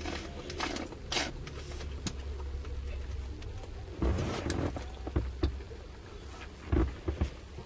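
Rustling and clicking of a small plastic condiment packet and a drinking straw as they are handled and sucked on, with a louder rustle about four seconds in, over a low steady hum.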